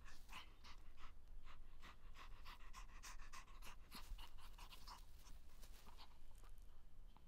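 Small dog panting quickly, short even breaths about four a second.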